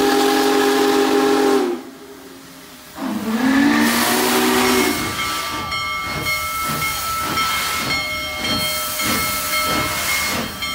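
Steam locomotive whistle blown twice, a chord of steady tones, the second blast sliding up in pitch as it begins. Then the locomotive chuffing at a steady beat of about two strokes a second, with steam hissing.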